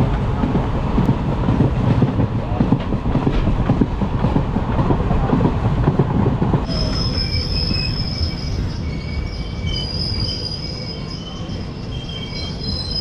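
Boat Mail Express passenger train running with a dense rumble of wheels on track. About halfway through the rumble drops and a high, steady wheel squeal of several held tones takes over as the train rolls slowly into a station.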